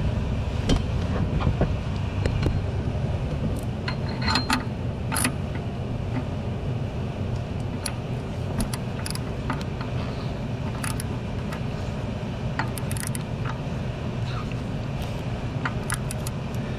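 Scattered light metallic clicks and clinks of hand tools against a new oxygen sensor being threaded into the exhaust manifold and fitted with a slotted sensor socket and ratchet, over a steady low rumble.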